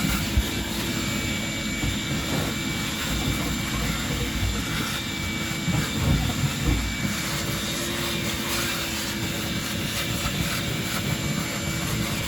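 A motor-driven cleaning machine running steadily, a droning hum over a constant rush of noise, its tone rising slightly about halfway through.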